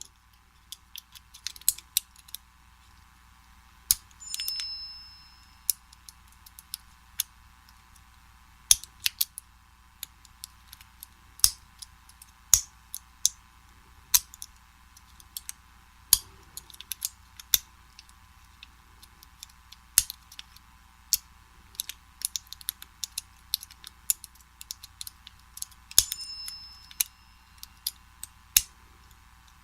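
Lock picking on a vintage Slaymaker Super padlock: irregular small metallic clicks and scrapes as the pick and tension wrench work inside the lock. There are two brief metallic rings, one about four seconds in and one near the end.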